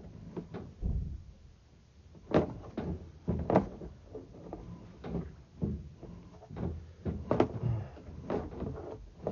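Irregular knocks and clunks from sewer inspection camera gear as the push cable is pulled back, the loudest of them about two and a half seconds in, about three and a half seconds in, and near seven and a half seconds.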